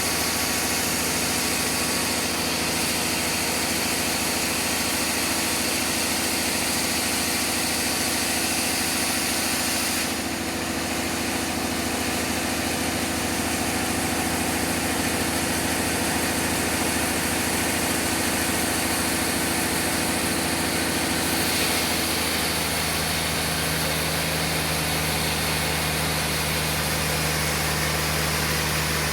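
Sawmill machinery running steadily, a constant engine-driven hum with a broad hiss over it. Its tone shifts slightly about ten seconds in and again a little past twenty seconds in.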